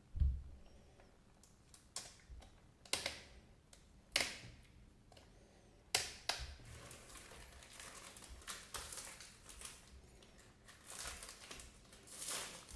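Pressed cork trays being handled: several separate light knocks in the first half, then a run of irregular rustling and scraping.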